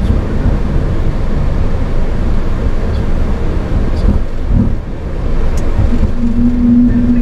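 Steady low rumble of an airliner cockpit while the aircraft taxis, with a brief steady hum joining near the end.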